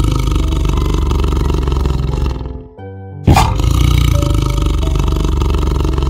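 Tiger roaring twice, each a long, low roar of about three seconds: the first fades out about two and a half seconds in, and the second starts abruptly about three seconds in. Background music plays under and between the roars.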